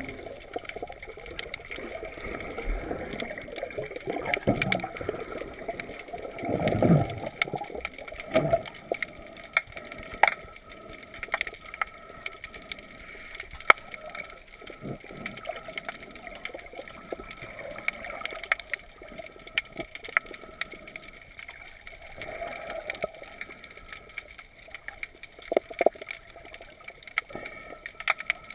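Muffled underwater sound heard through a GoPro's waterproof housing: water sloshing and gurgling around the camera, with scattered sharp clicks. There are a few louder swishes about four and seven seconds in.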